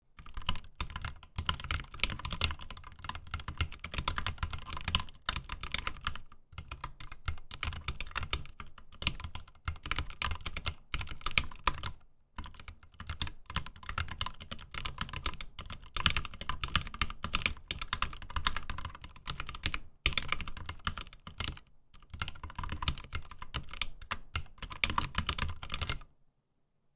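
Mechanical keyboard with Gateron pre-lubed yellow linear switches in a stainless steel plate with no foam, being typed on in fast continuous runs with a few short pauses. The typing stops shortly before the end.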